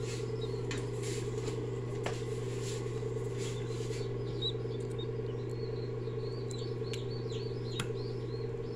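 Newly hatched chicks peeping in many short, high chirps over the steady low hum of an egg incubator, with a few sharp crackles of eggshell being peeled off by hand as a chick is helped out of its shell.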